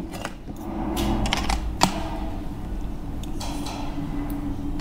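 A steady low mechanical hum with a few sharp clicks scattered through it.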